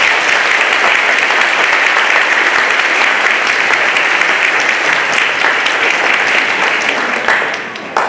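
Audience applauding steadily, fading near the end.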